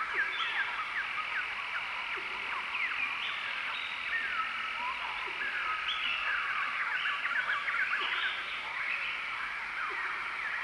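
A dense, steady chorus of many small wild animal calls: overlapping short chirps, quick whistled sweeps and buzzy trills, with no single call standing out.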